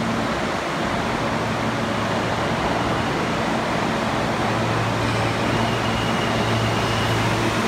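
Steady noise inside a New York City subway car: an even rushing hiss over a low hum that grows a little stronger about halfway through.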